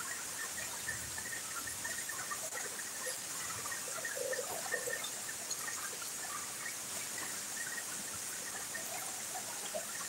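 Steady rain falling on leafy trees: an even hiss with scattered faint patters.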